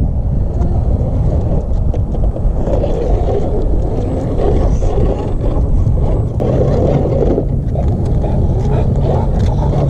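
Radio-controlled Axial SCX10 II rock crawler's electric motor and geartrain running as the truck crawls over sandstone. The pitch wavers with the throttle, and a steady hum sets in about six and a half seconds in.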